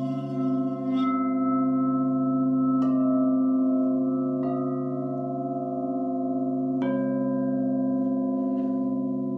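Crystal singing bowls ringing together in long, overlapping steady tones. A bowl is struck three times, each strike adding a fresh ringing tone over the sustained hum.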